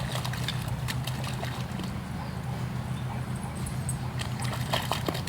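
Puppies' paws splashing and slapping in shallow mud puddles, scattered small splats and patters, over a steady low hum.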